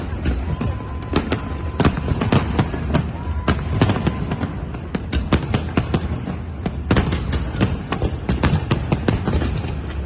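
Fireworks going off in rapid succession: many irregular bangs and crackles close together, with a thin steady whistle lasting about a second and a half starting about half a second in.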